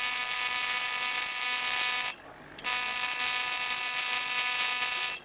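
Steady electric buzz with a hiss, like a small motorised tool running; it cuts out for about half a second twice, about two seconds in and again at the very end.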